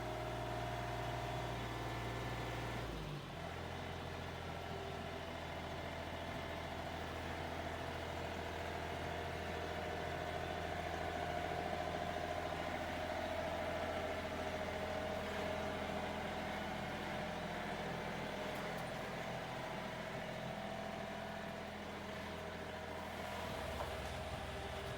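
Combine harvester engine running steadily, its tone shifting abruptly about three seconds in and again near the end.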